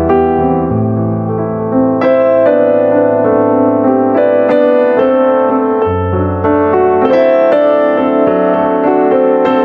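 Background piano music, notes struck one after another over a changing bass line.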